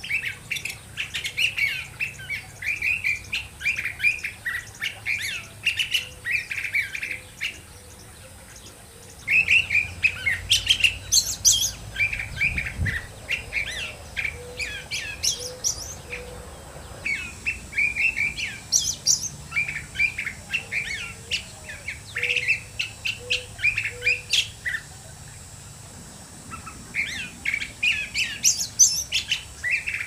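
Curve-billed thrasher singing: long runs of rapid, varied warbled notes in phrases several seconds long, separated by brief pauses.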